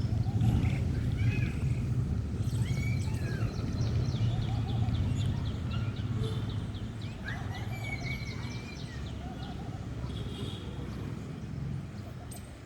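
Small birds chirping in short, curved calls, with a fast ticking trill for several seconds in the middle, over a steady low hum.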